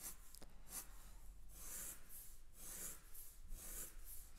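Felt-tip pen drawn across paper in a series of quick, light strokes, faint scratchy hisses about one every half to one second, as parallel floorboard lines are hatched in.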